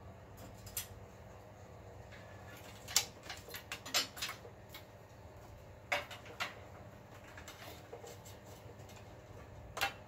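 Irregular sharp plastic clicks and light clatter as Ethernet (RJ45) cables are unplugged and pulled out through a metal server rack, bunched in two flurries with a single click near the end.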